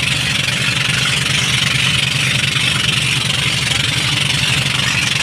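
Outrigger boat (bangka) engine running steadily under way, with a fast even beat and a steady rush of wind and water over it.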